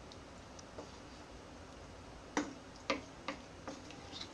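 A spoon knocking against a frying pan while stirring chunks of paneer in curry: a few sharp, irregular clicks, the loudest about halfway through.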